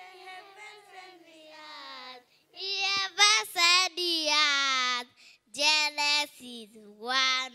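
A young girl singing into a handheld microphone in short phrases with held notes. She starts softly and gets louder about two and a half seconds in.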